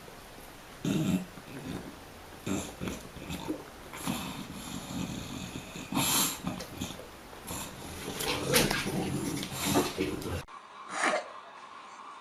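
English bulldog breathing noisily and grunting in short, irregular bursts as it sniffs and licks a baby's face. The sound cuts off abruptly near the end.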